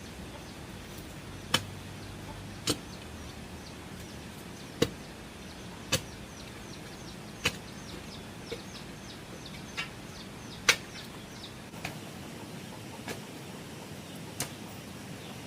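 A hand tool striking in sharp, single knocks at irregular intervals, roughly one a second, some much louder than others. Behind them is a run of short, high, falling chirps.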